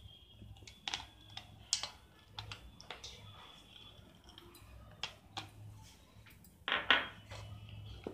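Metal spoon clinking and scraping against a steel mixing bowl while chopped nuts are stirred into thick cake batter: scattered light clicks, the loudest cluster near the end.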